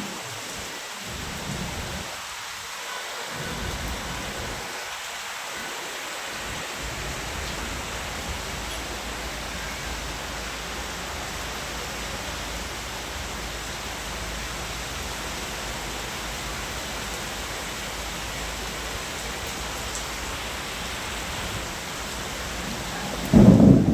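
Heavy rain falling in a steady hiss. A loud low rumble starts near the end.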